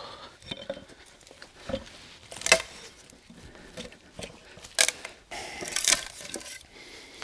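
A dry, knotty ash billet cracking and tearing as a froe is levered down through it: small creaks and ticks with two sharp cracks, then a stretch of splintering fibres near the end. The fibres hold together and make the split hard going.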